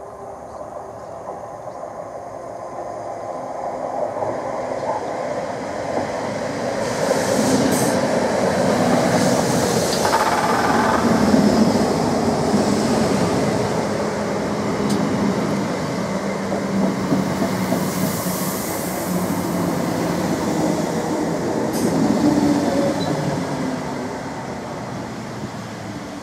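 Class 321 electric multiple unit running past alongside the platform: a rumble of wheels on the track with a steady hum and occasional clicks. It builds over the first ten seconds and eases off near the end.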